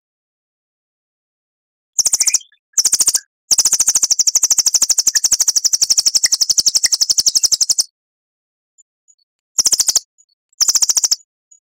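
Songbird singing a rapid, high-pitched trill. Two short bursts come first, then a long trill of about four seconds, then two more short bursts near the end.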